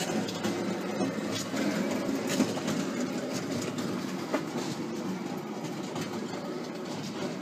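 Home-built gas-fired coffee roaster running: its steel drum turns on an electric motor with a steady mechanical rumble, and scattered clicks and rattles come from the beans tumbling inside.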